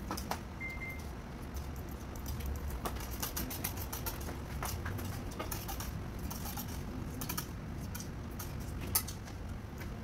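Computer mouse in use for drawing: scattered light clicks and ticks over a steady low room hum.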